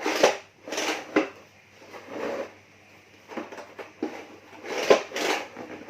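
Sliding armrest of a car centre console pushed back and forth along its rail, several short sliding strokes in a row.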